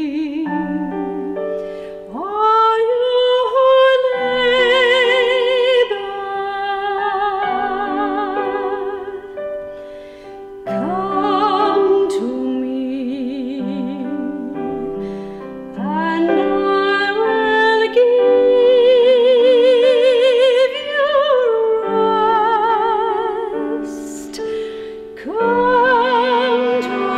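Classically trained female soloist singing a slow sacred song in long phrases with a wide vibrato, accompanied by cello and piano.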